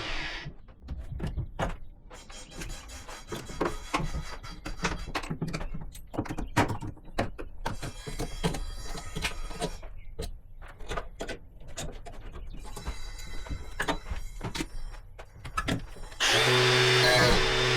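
An electric drill boring through a wooden wall stud stops at the start. For about 16 seconds there are only irregular knocks and clicks of tool and wood handling, and then the drill starts up again and runs steadily near the end.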